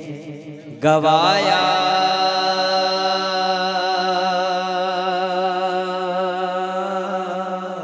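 A man singing a naat, a devotional Urdu poem, holding one long note with a wavering vibrato that begins about a second in. A steady low drone runs beneath the voice.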